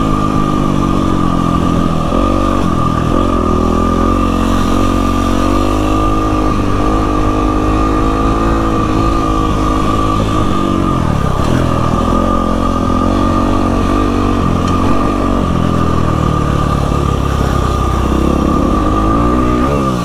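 Single-cylinder four-stroke engine of a 2012 Yamaha WR450F dirt bike, heard while riding; the pitch rises and falls with the throttle and drops off twice, about halfway through and near the end. A steady high whine sits over the engine note throughout.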